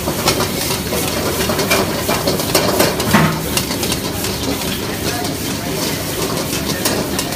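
Noodles and vegetables stir-frying in a wok over a gas burner: a steady sizzling hiss, with a metal ladle repeatedly clinking and scraping against the wok as the food is stirred and tossed.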